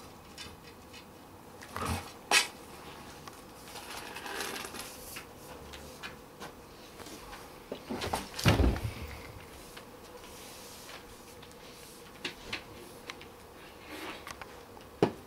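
Handling noise: a few sharp clicks and knocks about two seconds in as the wooden antenna boom is worked into its drill-rotator coupling, then a heavier low thump with a brief rustle just past the middle.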